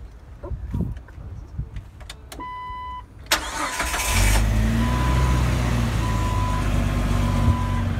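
1999 Jeep Wrangler's engine cranking briefly, catching and settling into a steady idle, after a few knocks of handling. A warning chime sounds once just before the start and keeps beeping on and off while the engine idles.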